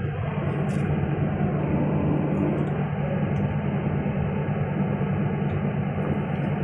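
A heavy machine's diesel engine running steadily: a low, even drone.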